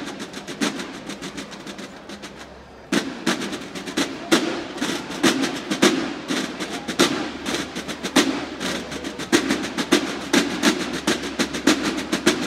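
Banda de guerra drum line playing rapid snare-drum strikes. A soft passage dies away over the first few seconds, then the drums come back in loudly about three seconds in and keep up a fast, dense beat.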